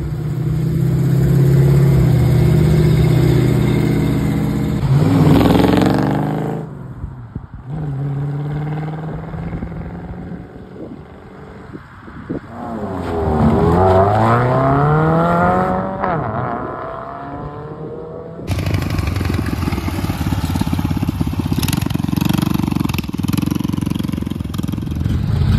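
Classic American cars' engines pulling away one after another: the first runs steadily at low pitch, then rises in pitch as it accelerates off about six seconds in; later a 1959 Cadillac's V8 revs up in rising sweeps. From about eighteen seconds in, a mini bike's small single-cylinder engine runs steadily with some clatter.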